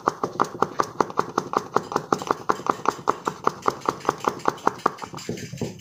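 A plastic funnel tapped quickly and evenly against the mouth of a glass bottle, about five light knocks a second, shaking powder down through it; the taps weaken near the end.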